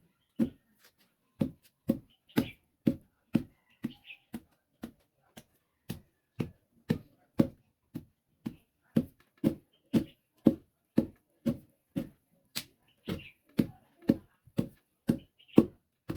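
Fufu being pounded with a wooden pestle in a mortar: steady, evenly spaced dull thuds about twice a second.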